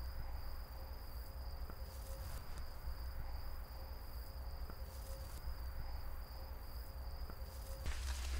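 Faint, steady, high-pitched chirring of insects in a field, over a low rumble. Near the end a louder rustling hiss sets in.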